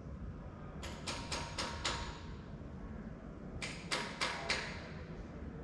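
Two quick runs of about four sharp knocks or clicks, one about a second in and one past the middle, over a steady low rumble.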